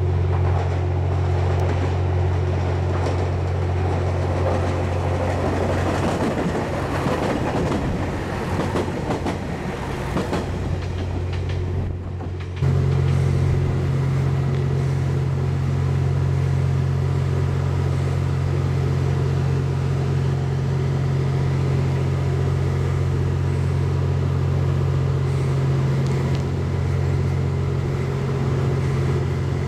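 Steady low hum of a standing Kiite 87 series diesel-electric hybrid train (TWILIGHT EXPRESS Mizukaze) with its engines and on-board equipment running. A rushing noise swells over the hum in the middle, and the hum steps up abruptly about twelve seconds in.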